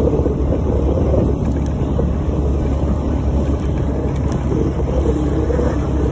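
Motorcycle engine running steadily while riding, with a low hum and wind buffeting the microphone.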